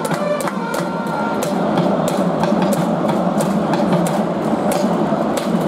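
Ballpark crowd noise with a cheering section's steady percussive beat, sharp hits several times a second.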